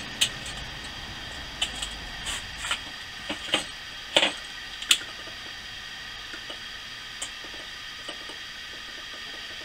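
A run of sharp clicks and light clinks, the loudest about four and five seconds in, then only faint ticks. The sounds come from a utility lighter being clicked and a small metal-and-glass candle lantern being handled while its candle is lit.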